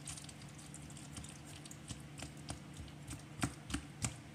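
Spoon tapping and scraping against a pot while stirring mac and cheese: light, irregular clicks, a few louder ones about three and a half to four seconds in.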